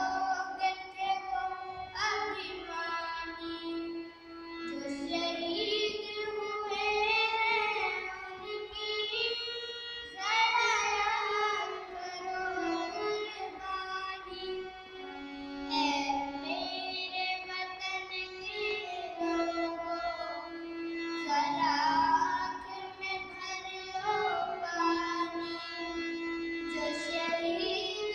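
A young girl singing a song, accompanied by a harmonium whose steady held notes sound under her voice.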